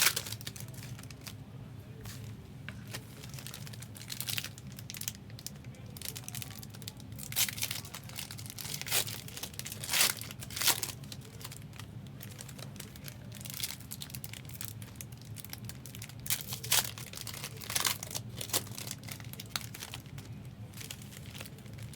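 Foil trading-card pack wrappers being torn open and crinkled, in irregular short crackling bursts, over a steady low hum.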